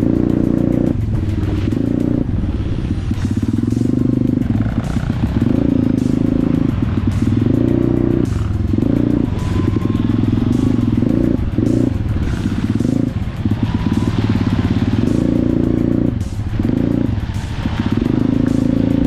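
Off-road motorcycle engine running under load while riding, its note repeatedly dropping and picking up again as the throttle is closed and reopened.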